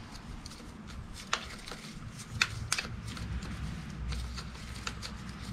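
Light, irregular clicks and taps of a metal bolt and brake caliper being handled and finger-tightened onto the fork.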